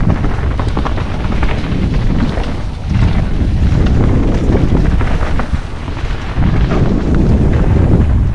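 Wind buffeting the microphone of a camera on a mountain bike riding down a trail, with the rumble of the tyres over the ground and small clicks and rattles from the bike.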